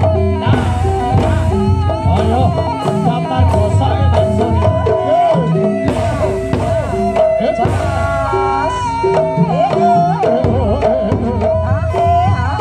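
Javanese jaranan buto ensemble music: hand drums keep a steady beat under repeating gong-like tones, with a wavering melody that slides in pitch.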